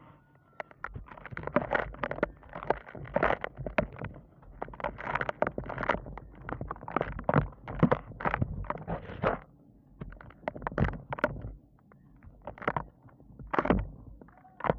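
A gritty, crumbly material being crushed and crumbled, a dense run of irregular crunches that thins to a few separate crunches over the last five seconds.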